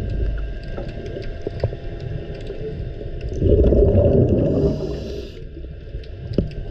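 Underwater sound picked up by a submerged camera: a steady low rumble of water with scattered sharp clicks, swelling to a louder rush of noise about three and a half seconds in that eases off about two seconds later.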